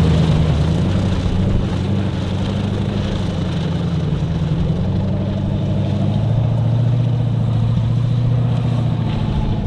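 Formula offroad buggy's engine running loud and steady under throttle, its pitch shifting slightly, with a lower note coming up about six seconds in.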